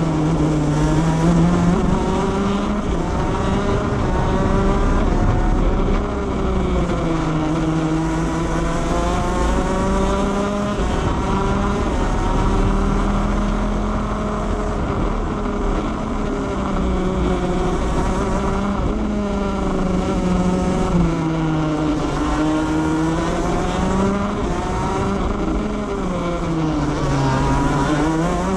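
Shifter kart's 125cc two-stroke engine at racing speed, heard from on board: its pitch falls as the kart slows for corners and climbs again under throttle, several times over.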